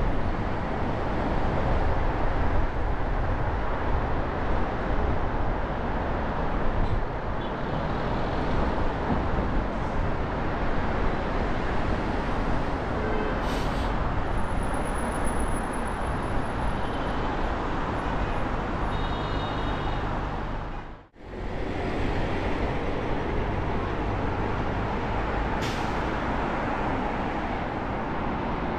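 Steady road and traffic noise while driving through city streets, with the rumble of vehicles all around. About two-thirds of the way through, the sound cuts out for an instant and then returns.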